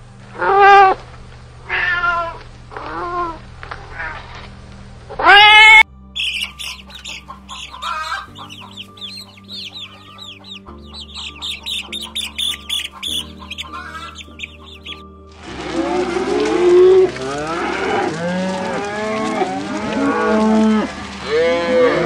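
A cat meowing repeatedly, then baby chicks peeping rapidly from about six seconds in, then cattle mooing over one another from about fifteen seconds in, all over steady background music.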